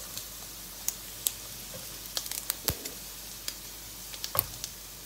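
Fermented pork belly frying in its own rendered fat in a nonstick pan: a steady sizzle with scattered sharp pops and clicks while the pieces are lifted out with metal tongs.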